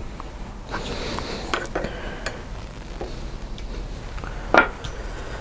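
Scattered light clicks and knocks of wooden parts being handled and fitted together during glue-up, with one sharper knock near the end, over a low steady hum.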